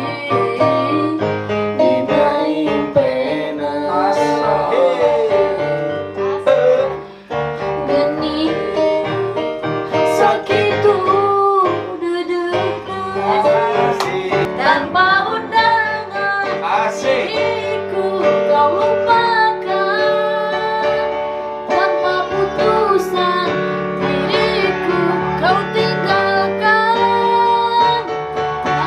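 A woman singing a melodic song over instrumental accompaniment, her voice sliding and bending between notes.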